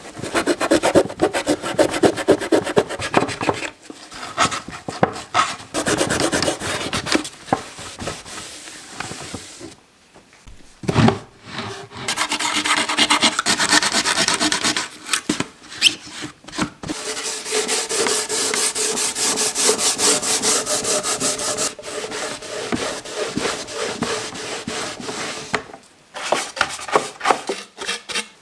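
Fast back-and-forth hand rubbing on the wood of an old toolbox, a dry scratchy stroke repeated many times a second. It comes in several runs broken by short pauses, the longest around ten seconds in.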